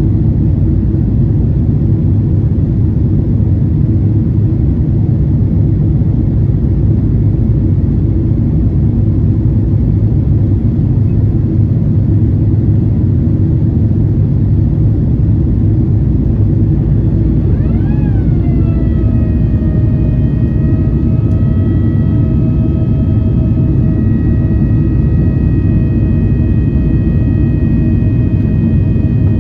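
Steady low rumble of jet-airliner cabin noise in flight. About two-thirds of the way in, a whine with overtones starts, rises briefly in pitch, then settles and holds steady.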